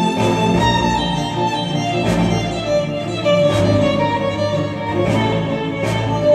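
Instrumental music led by violin and strings, played back through Monitor Audio Bronze 100 bookshelf speakers driven by a Yamaha A-S301 integrated amplifier. It has held, layered notes over a light, regular beat.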